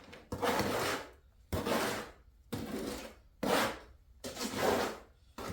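A tool scraping and working through wet, soupy mortar in repeated strokes, about five of them roughly a second apart.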